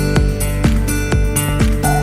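Background music with a steady electronic beat and held bass notes.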